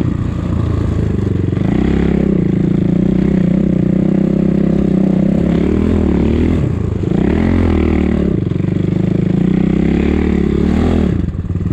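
250 cc enduro motorcycle engine running under load through snow, revs rising and falling, with a short drop in revs about two-thirds through and again near the end.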